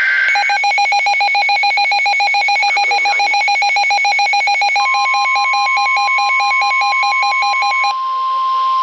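NOAA Weather Radio alert: the last of a two-tone SAME data burst, then the weather radio receivers' alarms beeping fast and evenly in a warbling multi-pitch pattern. About five seconds in, the steady 1050 Hz NWS warning alarm tone starts and holds, and the receiver beeping stops about a second before the end.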